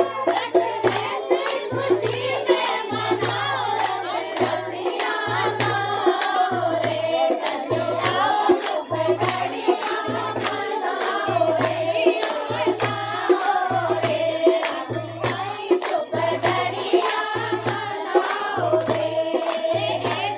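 Dance song playing: a sung melody over a steady beat of deep bass thumps about once a second and a rattling shaker.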